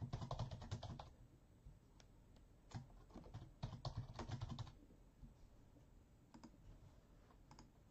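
Typing on a computer keyboard: a quick run of keystrokes at the start, a longer run about three seconds in, then a few scattered single key clicks.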